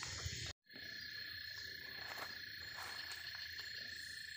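Insects chirring in a steady chorus: a constant high-pitched drone with a thinner, higher tone above it. The sound cuts out for a moment about half a second in.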